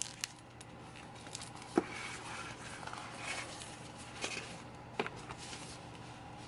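Thin plastic packaging and a deflated vinyl beach ball crinkling and rustling as they are handled and unfolded, with a few sharp crackles; the sharpest comes about two seconds in.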